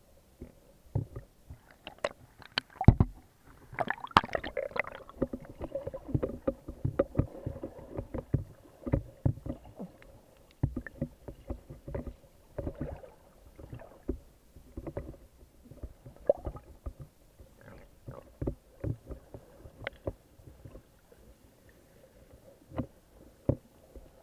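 Underwater sound picked up by a snorkeler's camera: irregular clicks, knocks and bubbling of water moving around the camera, with the loudest knock about three seconds in.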